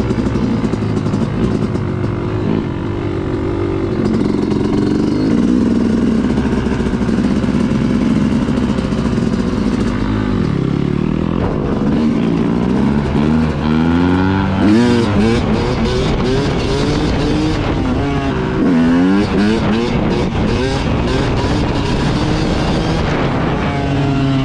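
Dirt bike engine running steadily, then revving up and down repeatedly through the second half as the bike is ridden. Scattered sharp knocks are mixed in with the revving.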